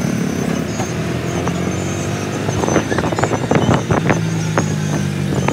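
Auto-rickshaw's small engine running with a steady drone, heard from inside the moving auto, with a cluster of sharp rattles and knocks around the middle.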